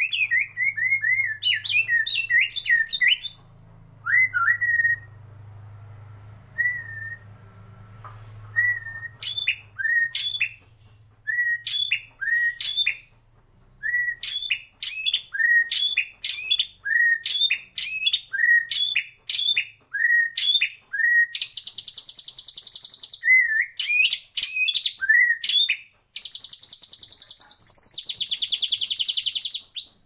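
White-rumped shama singing: a quick run of notes, a few seconds of scattered single notes, then a long series of short whistled notes, each with a sharp upward flick, repeated about once or twice a second. Twice, near the middle and at the end, the song turns into a long harsh buzzing trill.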